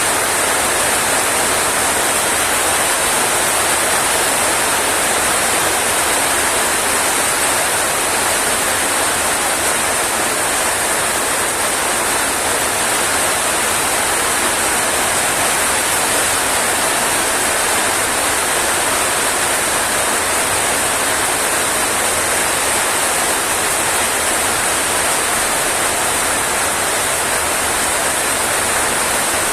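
Rain falling steadily, an even, unbroken hiss that does not change.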